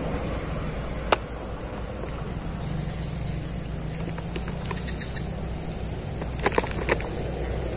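Outdoor ambience: a steady, high-pitched buzz of insects over a low, steady rumble. There is one sharp click about a second in and a quick run of three clicks near the end.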